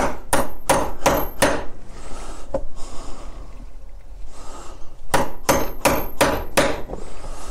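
Hammer striking a metal hole punch through a thick drum skin onto a wooden block: about five quick blows with a short metallic ring, a pause, then about five more, each run punching one lacing hole.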